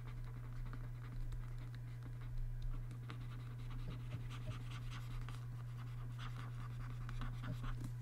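Faint, irregular scratching strokes of a stylus working on a Wacom pen tablet, more of them from about three seconds in, over a steady low electrical hum.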